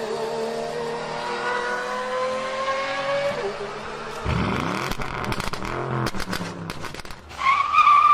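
Car sound effects: an engine revving with a slowly rising pitch for the first few seconds, then a rush of engine noise sweeping down and up in pitch like a car going by. A loud high squeal, like tyres, comes near the end.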